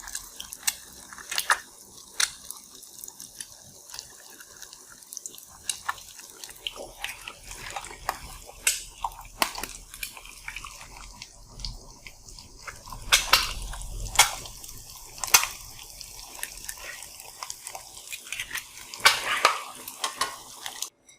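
Eggs frying in a pan with a steady sizzle, and a utensil now and then clicking and scraping against the pan.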